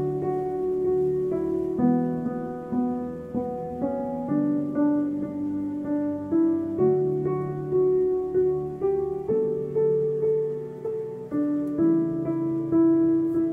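Background piano music: a slow melody of single notes, each struck and left to fade, about one a second.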